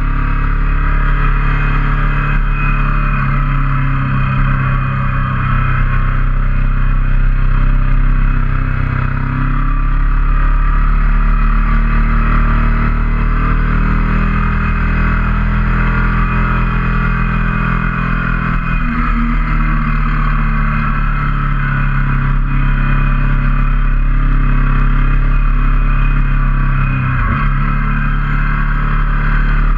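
Ducati motorcycle engine running under way at road speed, its pitch stepping up and down as the throttle is rolled on and off through the curves, with steady wind rush over the bike.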